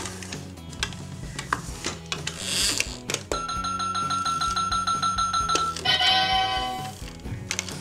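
Robocar Poli toy gas pump's electronic fuelling sound: a click, a steady high beep for about two seconds ending in another click, then a short electronic chime, over background music.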